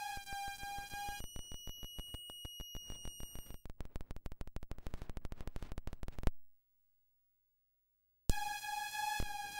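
Circuit-bent toy sound chip glitching. A steady buzzing electronic tone breaks about a second in into high held tones over a stream of clicks. The clicks speed up into a rapid stutter, cut out to silence for about two seconds, and then the buzzing tone returns with a few clicks.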